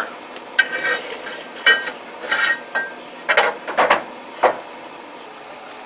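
Flat steel pieces clinking and knocking against the sheet-metal floor pan as they are handled and laid in place: several light metallic clanks with short ringing in the first three seconds, then a few more knocks at about three and a half to four and a half seconds.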